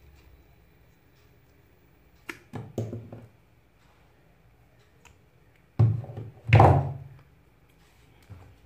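Side cutters and hand-handling on the CRT TV's red high-voltage anode lead as it is cut. There is a sharp click a little over two seconds in and a few smaller clicks just after it, then two loud thunks about six seconds in.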